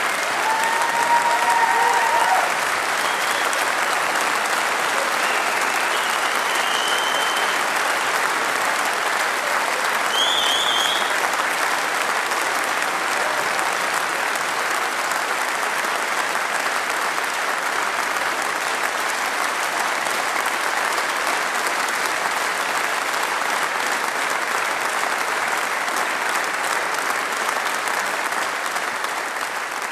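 Audience applauding steadily and at length, with a few short whistles over the clapping in the first dozen seconds.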